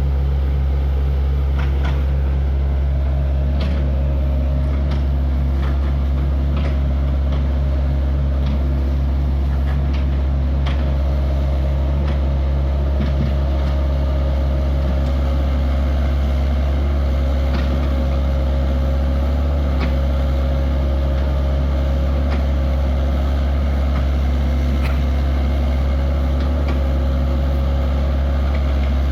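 Excavator engine running steadily, a deep constant drone with scattered clicks and knocks from the machine at work.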